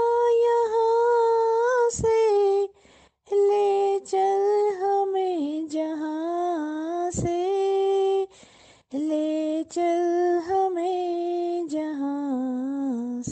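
A woman singing a slow, mournful Hindi song with no accompaniment. She draws out long held notes in three phrases, with short silent breaks about three and nine seconds in.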